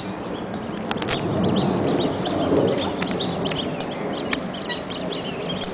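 Birds calling at a pond: a short, high call repeats about every one and a half seconds over steady background noise, with a couple of sharp clicks about a second in.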